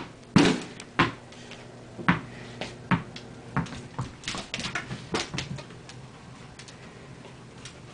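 Irregular knocks and thumps as a dog plays with a ball on the floor, about one a second, loudest in the first second and fading out after about five seconds.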